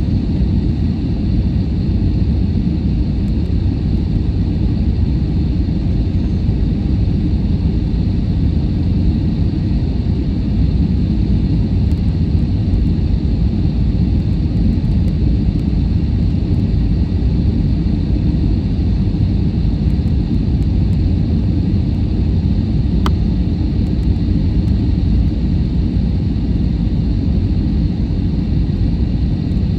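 Steady loud rumble inside an airliner's cabin as it descends low on approach to land: engine and airflow noise, with a faint steady high whine above it.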